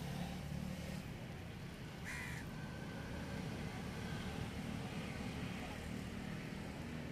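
A bird calls once, about two seconds in, a short harsh call over a steady low rumble.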